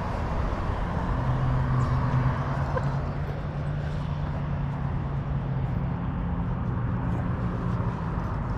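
A motor engine running steadily with a low hum that is slightly louder about two seconds in, over constant background noise.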